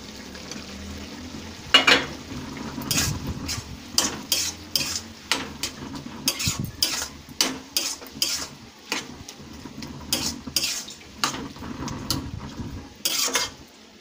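A metal spatula stirring a curry in an iron kadai, knocking and scraping against the pan about twice a second over a light sizzle. A sharp metal clank about two seconds in.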